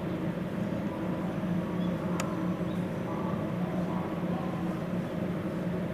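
Steady low machine hum, with a single sharp click about two seconds in.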